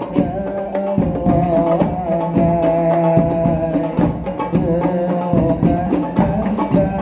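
Hadroh music: rebana frame drums beaten in rhythm under voices singing together in a held, wavering melody.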